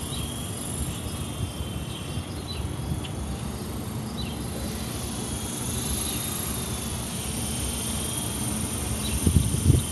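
Small electric fixed-pitch RC helicopter flying, its motor and rotors giving a high whine whose pitch wavers up and down as the throttle changes rotor speed. Low rumbling on the microphone near the end.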